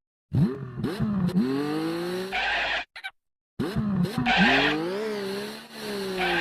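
Stock cartoon sound effect played twice in near-identical takes: a squeal that swoops up and down in pitch over a rushing noise, each take about three seconds long and cut off abruptly.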